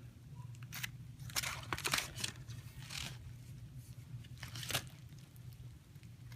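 Handling noise from two BMX frames being held and lined up against each other: scattered light knocks and rustles, over a low steady hum.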